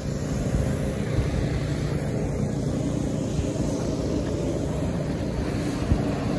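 Steady low drone of a running engine, even throughout with no sharp sounds.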